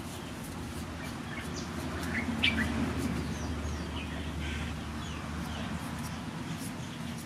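Birds chirping in short calls, the loudest about two and a half seconds in, over faint repeated scraping strokes of a knife peeling the skin off a green papaya.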